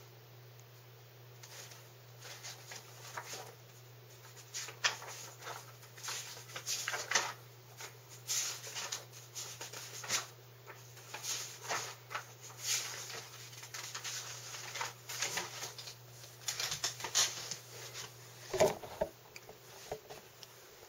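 Irregular rustling and small clicks of things being handled close to the microphone, over a steady low electrical hum. A heavier knock comes near the end as the camera is moved.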